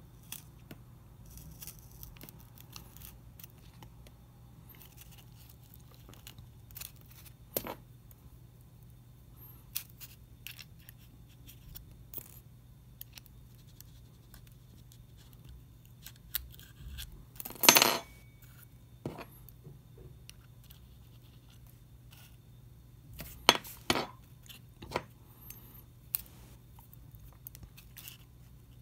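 Scattered small clicks, taps and scrapes of metal forceps and insect pins being handled against a styrofoam pinning board and paper strips, with one louder noise about half a second long near the middle and a run of clicks near the end.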